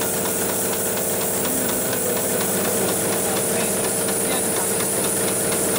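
Hightex programmable pattern sewing machine running, stitching through thick polyester webbing: a rapid, even clatter of needle strokes over a constant hum and a steady hiss.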